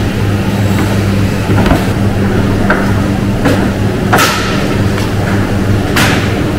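Steady low hum of processing-plant machinery, with about half a dozen short scraping sounds from a knife cutting a side of pork along the ribs.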